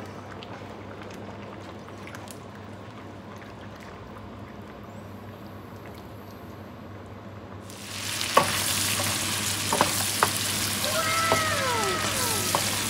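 A quiet hiss from a pan of simmering salmon broth being stirred with a ladle. About eight seconds in, it gives way to a loud sizzle of whole shrimp frying in garlic butter, with a few sharp clicks of the utensil against the pan.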